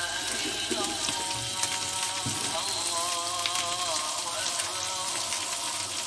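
Liver skewers wrapped in caul fat sizzling on a hot griddle plate, a steady hiss with many small crackling pops. Background music with a wavering melody plays over it.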